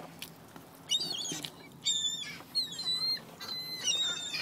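Seagulls calling: a series of about four short, high, clear calls, starting about a second in.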